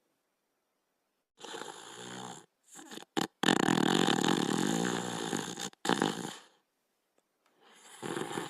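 A cartoon Border Collie snoring in its sleep: one snore about a second and a half in, a long loud snore from about three and a half seconds to almost six, a short one right after, and another starting near the end. Each snore breaks off abruptly into dead silence.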